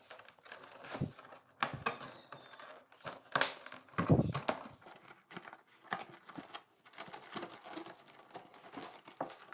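A new rubber refrigerator door gasket being pressed and worked into the door's groove by hand: irregular rubbing, crinkling and small knocks, with a louder thump about four seconds in.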